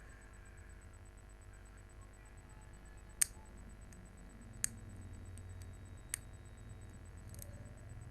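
Sharp, short clicks and snaps, four of them about a second and a half apart, as PLA support material is broken off a freshly printed 3D part.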